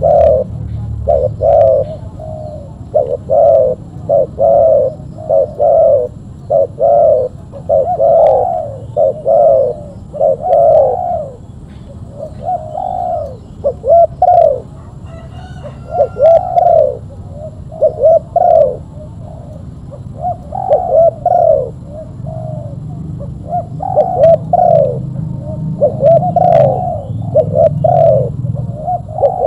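Spotted dove cooing over and over, short arched coos coming about once a second with a few brief pauses.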